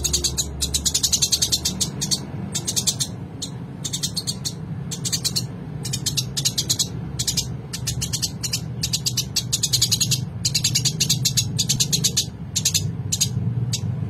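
Eurasian tree sparrow chirping rapidly in quick bursts of chattering, about one to two bursts a second with short gaps, over a steady low hum.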